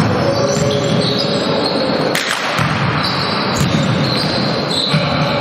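Basketball being dribbled on a wooden court amid players' running footsteps, echoing in a large sports hall.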